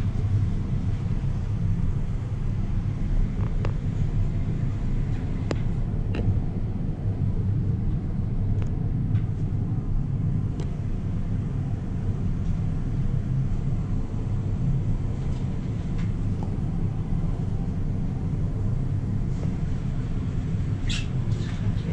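Elevator car rising in its shaft: a steady low rumble from the ride, with a few faint clicks.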